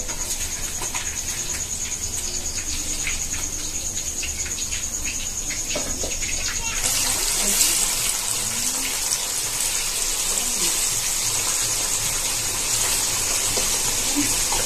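Light clinks and scrapes of metal spatulas in steel pans over a steady hiss, then from about seven seconds in a louder, steady sizzle of fish pieces deep-frying in hot oil in a steel karai.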